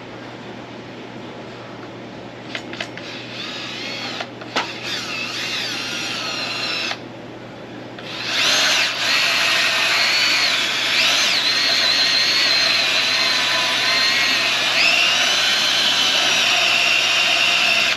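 Cordless drill turning a 4 5/8-inch hole saw against a thin sheet-metal bracket plate, scribing a circle in it. There is a shorter, quieter run in which the whine climbs in pitch, a brief let-up about seven seconds in, then a long, much louder steady cut with a high whine.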